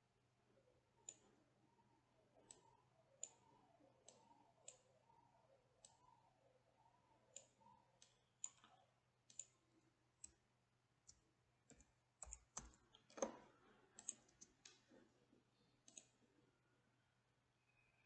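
Faint, irregular clicks of a computer mouse and keyboard, about twenty sharp clicks spread unevenly through, over a low steady hum.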